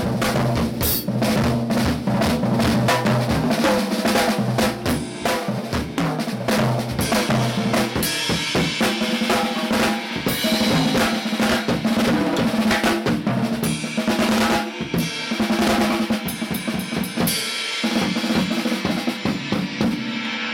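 Drum kit played with sticks: a Mapex Sledge Hammer snare drum in fast strokes and rolls over bass drum and cymbals, the snare ringing with each hit.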